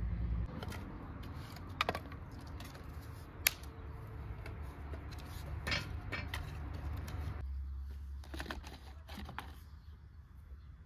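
Scattered sharp clicks and light knocks over a low steady rumble, the sharpest click about three and a half seconds in.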